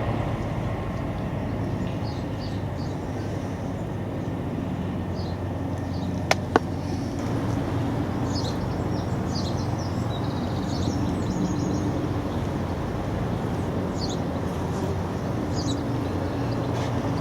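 Steady low mechanical rumble from a distant vehicle, with small birds chirping in short bunches and two sharp clicks about six seconds in.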